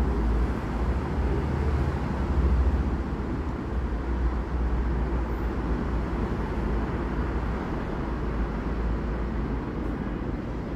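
Steady low outdoor rumble of city and rail background noise, a little louder about two seconds in and easing slightly after.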